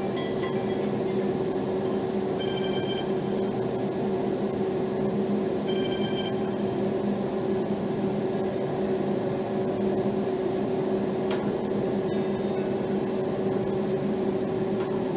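A phone ringtone playing: a steady low hum with two brief high electronic tones about three seconds apart.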